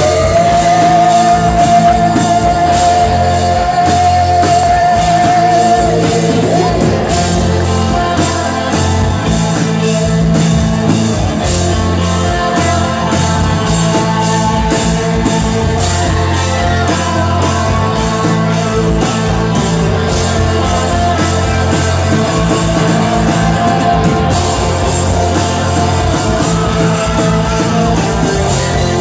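Rock band playing live at full volume: electric guitars, drum kit and a male lead vocal singing long held notes over a steady beat.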